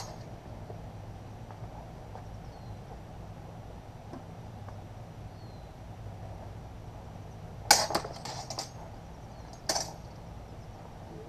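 Steel practice longswords clashing in sparring: a quick flurry of sharp, ringing blade-on-blade clashes about eight seconds in, then one more clash about two seconds later, over a steady low hum.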